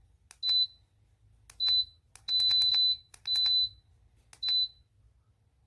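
Sunnote ceramic space heater's control panel beeping as its buttons are pressed: each press is a click followed by a short high beep. There are five in a row, and around the middle a run of quick presses holds the beep longer.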